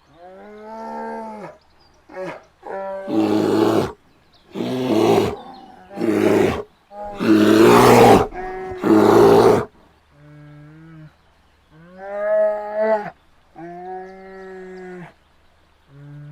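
Bear vocalisations: a short pitched moaning call, then five loud, rough roars in quick succession, then several more short moaning calls.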